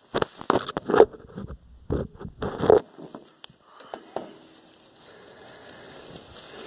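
Close handling noises: a quick run of sharp clicks, knocks and scraping rustles for about three seconds, then a faint steady hiss.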